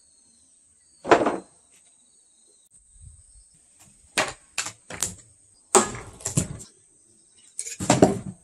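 Old wooden boards being wrenched off a shed wall and thrown down. A loud crash about a second in, then clusters of sharp cracks, knocks and wooden clatters as planks split and come loose.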